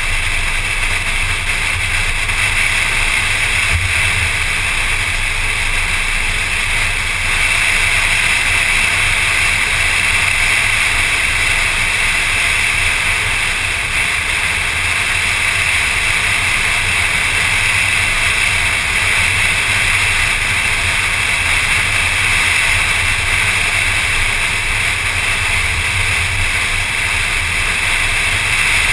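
Steady wind and road noise of a car driving at speed, picked up by a camera on the car's hood: a low rumble under a constant hiss. It gets a little louder about seven seconds in.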